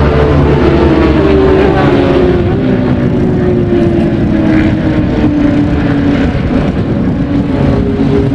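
Racing motorcycle engine running hard at high revs, its pitch falling slowly over the first several seconds and then holding steady.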